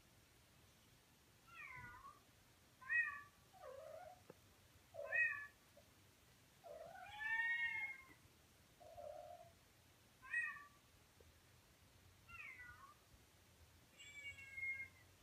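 A cat meowing over and over: about nine short separate meows, some low and some higher in pitch, several rising and falling.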